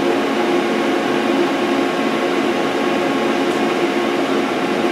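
Steady hum of the CNC lathe and its electrical cabinet at idle, with a few held tones over an even machine noise; the spindle has come to a stop.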